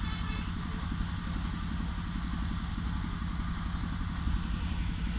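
A small engine running steadily with a fast, even chug.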